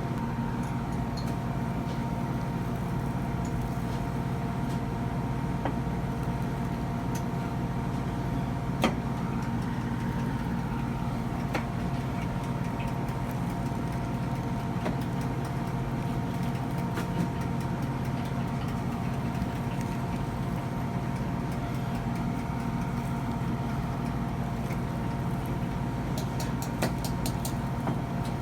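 Steady mechanical hum, with a few sharp clicks over it, the loudest about nine seconds in.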